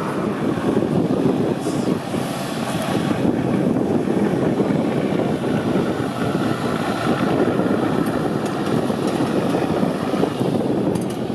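Heavy off-road trial truck's diesel engine running steadily, with wind noise on the microphone.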